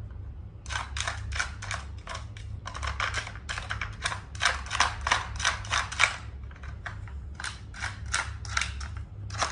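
Quick, irregular plastic clicking and clattering from a Nina Ottosson Dog Brick puzzle toy as a dog noses and paws its pieces to get at the treats, over a steady low hum.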